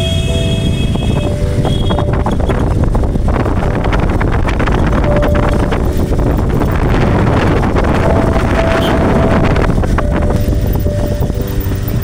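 Wind buffeting the microphone over the running noise of a moving vehicle: a steady, loud rush, heaviest in the low end.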